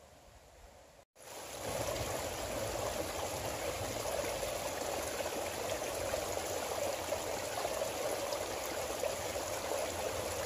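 A small, shallow forest creek running over stones and fallen twigs: a steady rush of flowing water that starts about a second in.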